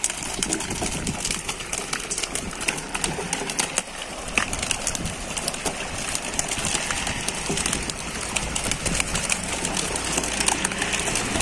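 Pangasius catfish thrashing in shallow pond water and flapping in plastic crates: a dense run of small slaps and splashes.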